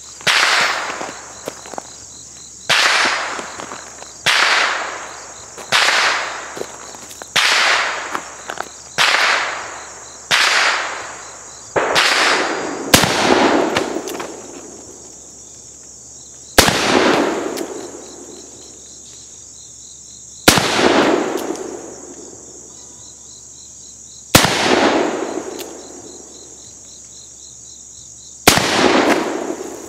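Uberti replica Remington cartridge conversion revolver firing black powder .44-40 cartridges: about a dozen shots, each with a rolling echo. The first shots come about every second and a half, and later ones about every four seconds. A steady chirring of insects runs underneath.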